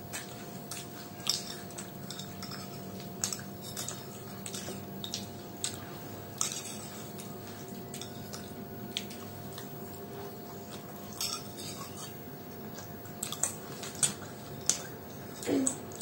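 People eating pakoras from small plates: scattered light clicks and taps of fingers and utensils on the plates, with chewing, over a steady faint hum.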